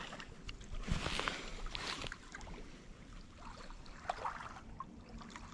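Small waves lapping and splashing at a lakeshore, strongest in the first two seconds, then a softer wash.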